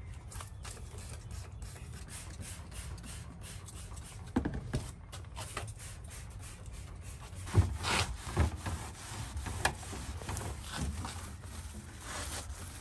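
Trigger spray bottle squirting degreaser onto a stainless steel sink and counter, then a scrubbing pad rubbing over the steel in repeated strokes, with a few louder knocks in the second half.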